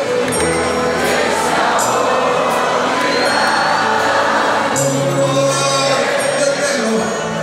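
Live band music with singing over it, loud and continuous, as heard from within a concert audience.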